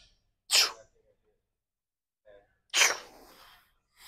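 A man's short, sharp, forceful exhales as he strains through repetitions on a lying leg curl machine: two about two seconds apart, and a third starting near the end.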